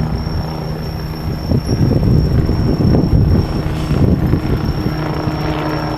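Autumn insects singing a continuous high-pitched trill over a low rumble. The rumble swells about a second and a half in and eases off after about four and a half seconds.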